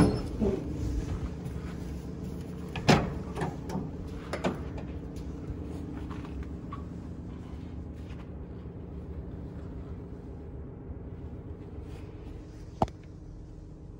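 Side door of a Chevrolet Express 3500 passenger van clunking open at the start. A loud knock follows about three seconds in, then a few lighter knocks and a single sharp click near the end, over a steady low hum.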